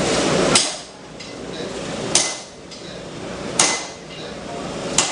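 Hammer blows on a fuller against hot steel on an anvil, working away the cutting mark. Four evenly spaced strikes about a second and a half apart, each with a short metallic ring.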